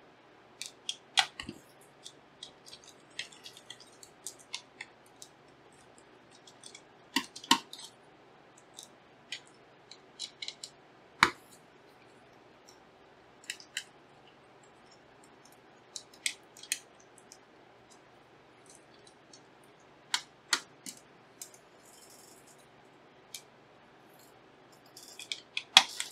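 Irregular small clicks and light metallic taps as screws are taken out of a graphics card with a screwdriver, the clicks coming singly and in short clusters with pauses between.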